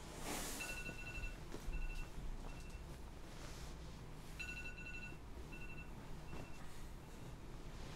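An alarm going off: an electronic beeping pattern of one long beep followed by two short ones, repeating about every four seconds at the same two pitches, the sound of a wake-up alarm left ringing until snoozed. A brief noisy swish near the start.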